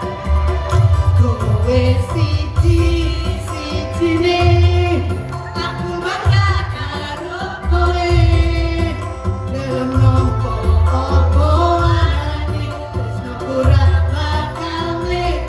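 Mixed choir of teachers singing together to electronic keyboard accompaniment, with a strong, steady bass line under the voices.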